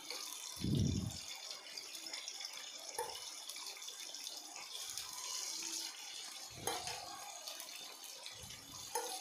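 Chicken pieces shallow-frying in hot oil in a nonstick kadai on medium flame: a steady sizzle, with a few dull low thumps about a second in and again near the end.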